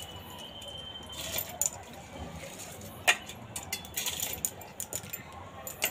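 Stainless steel kitchen vessels clinking and knocking as they are handled: a scatter of light metallic clinks, with one sharper knock about three seconds in.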